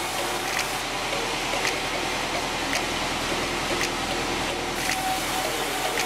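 Large sawmill band saw running steadily, with a sharp tick about once a second.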